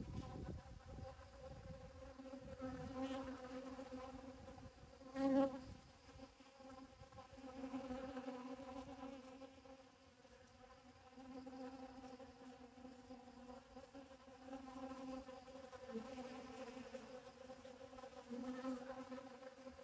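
Honeybees buzzing as they forage for pollen: a wing hum that swells and fades as bees fly in and out, loudest about five seconds in as one passes close.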